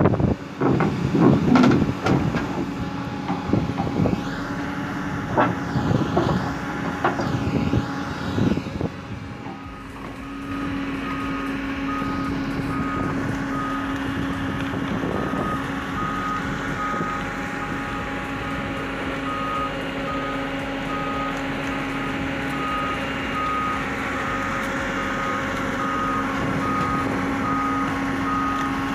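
Clattering knocks and scraping over a running engine as an excavator bucket works around a large concrete cylinder. About ten seconds in this gives way to a Hyundai Robex 220-9S hydraulic excavator's engine running steadily while its travel alarm beeps about once a second as it tracks.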